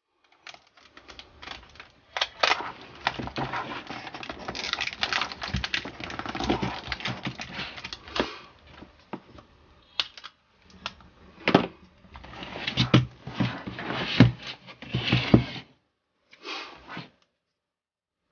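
Hands handling the battery pack and tape on a workbench: rustling and crinkling with scattered sharp clicks and knocks, a few louder ones, a short pause near the end, then a brief rustle.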